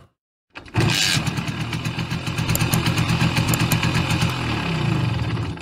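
Small motorcycle engine running with a rapid, even exhaust pulse, starting about half a second in; the revs rise briefly near the end.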